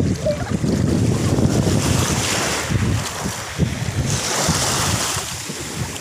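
Small Black Sea waves washing up over a pebble beach, the surf hiss swelling about two seconds in and again about four seconds in, with wind buffeting the microphone.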